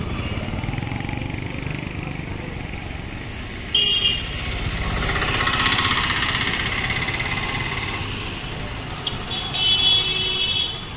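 Busy street traffic with motorcycles running. A vehicle horn gives a short honk about four seconds in, a vehicle passes close midway, and a longer honk comes near the end.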